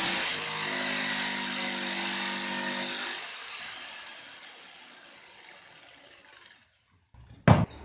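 Electric jigsaw running as its blade cuts through a plywood sheet, a steady buzzing saw noise that dies away after about three seconds. A brief sharp click near the end.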